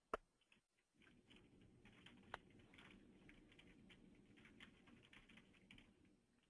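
Near silence on an open line, with a few faint scattered clicks and a faint low hum that comes in about a second in.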